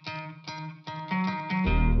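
Background music: a plucked guitar picking out notes about three times a second. Near the end a loud low hum comes in under it.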